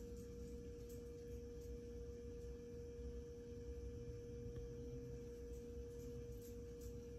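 A faint, steady, single mid-pitched electronic tone that holds unchanged, over a low rumble.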